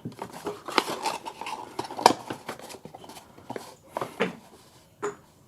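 Handling noises: a run of light clicks, taps and rustles as a yo-yo and its packaging are handled and moved about, with the sharpest click about two seconds in.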